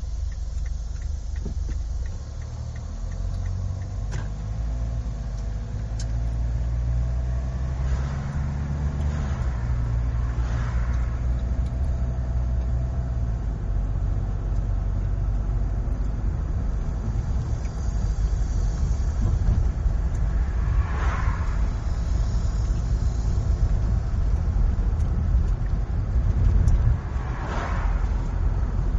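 Car driving on a road: a steady low rumble of engine and tyres, with a few whooshes that swell and fade, about two-thirds of the way in and again near the end.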